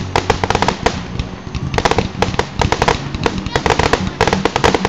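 Fireworks show: aerial shells bursting overhead with dense crackling, many sharp cracks and pops coming in rapid runs, one after another.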